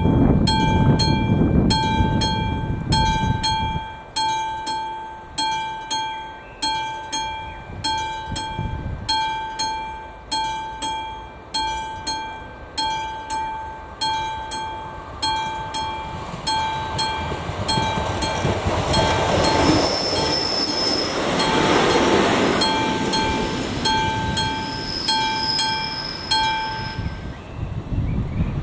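AŽD 71 level-crossing warning bell ringing in steady repeated strikes, about one and a half a second, and stopping shortly before the end as the signals go dark. In the middle a train's rushing rumble swells and fades as it passes the crossing, with brief high wheel squeals.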